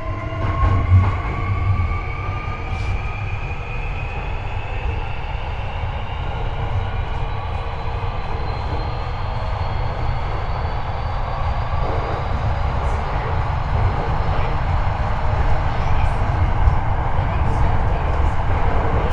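Hankyu 8300 series electric train: the Toyo IGBT-VVVF inverter and 190 kW induction traction motors whine in several parallel tones that rise steadily in pitch as the train accelerates, over a constant rumble of wheels and bogie. The uploader says this car's inverter modulation is unusually high-pitched.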